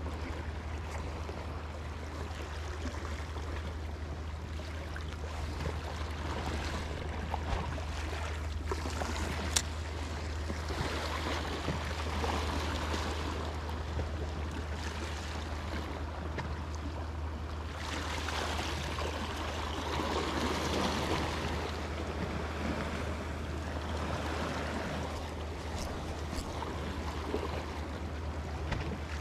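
Sea water washing and lapping, swelling and easing in level, over a steady low hum, with a couple of sharp clicks.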